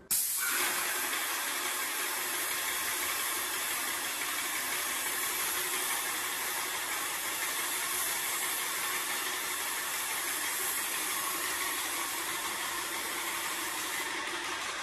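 Airless paint spray gun hissing steadily as it atomises paint onto a wall; the hiss dies away near the end.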